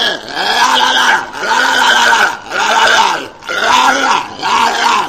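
Walrus calling in a run of about five low, rough calls, one roughly every second, each rising and then falling in pitch.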